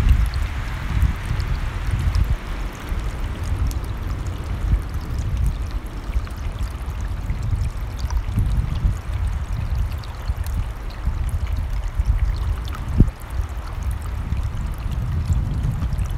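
A running stream's steady rush, with a gusting low rumble of wind on the microphone and a single thump about three-quarters of the way through.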